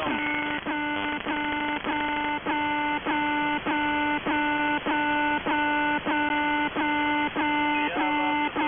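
Shortwave radio reception in upper sideband with no voice on the channel: a steady buzz of several stacked tones, broken by a short dip about one and a half times a second in an even rhythm.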